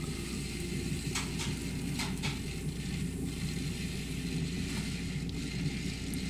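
Potter's wheel running with a steady low hum while a rib is held against the spinning wet clay of a thrown pot, with a few faint scrapes about a second and two seconds in.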